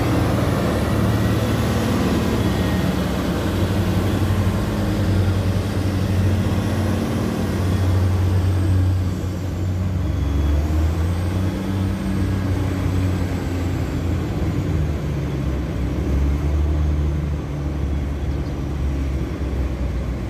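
Sany concrete mixer truck's diesel engine running as the truck drives off, its engine note shifting lower and higher a few times along the way.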